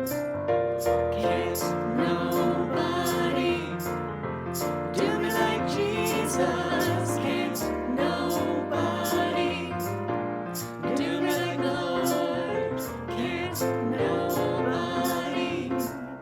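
A song with singing voices over sustained bass notes and a steady beat.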